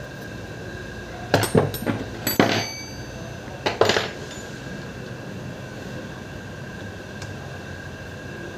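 Metal parts of a starter motor clinking and knocking together as it is handled and taken apart: a quick run of sharp clinks with a brief metallic ring about a second in, then two more near the four-second mark.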